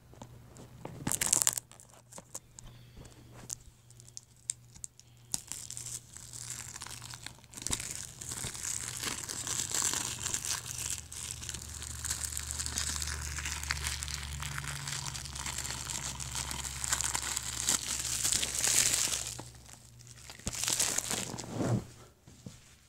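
Clear plastic shrink wrap being torn and peeled off a DVD case, a steady crinkling and crackling with louder rips about a second in and near the end.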